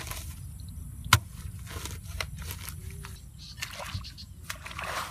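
A hoe chopping into wet clay soil: one sharp, loud strike about a second in, then several lighter knocks and scrapes.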